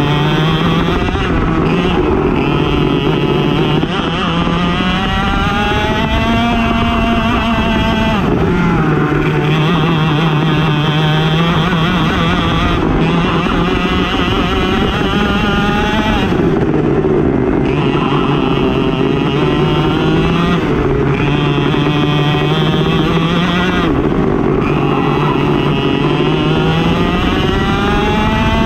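Racing go-kart engine at full throttle under race conditions, its pitch climbing for several seconds and then dropping sharply, about seven times, as the kart accelerates down straights and lifts into corners.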